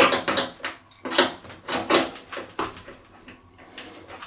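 Steel adjustable wrench clicking and clacking against a washing machine's transit bolt and the plastic around it as the jaws are repositioned, struggling to seat on the bolt head. It is a string of irregular sharp clicks that thins out near the end.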